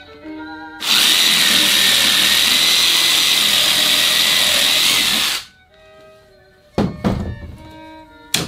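Hand-held cordless power tool run hard on the van's floor for about four and a half seconds, a loud even whirr that stops abruptly, followed by two short bursts about a second and a half later and a sharp click near the end.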